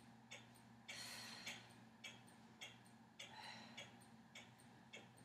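Near silence with a faint, regular ticking about twice a second, and two breathy exhalations, about a second in and again after three seconds, from a woman breathing out as she presses up in a pelvic-tilt exercise.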